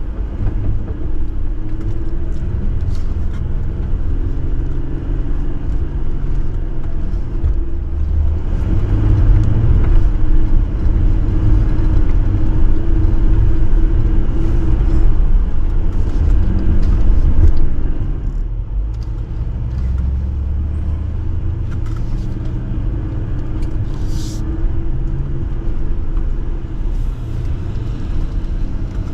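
Jeep engine and drivetrain rumbling steadily while driving offroad. It gets louder for about ten seconds in the middle, then eases back.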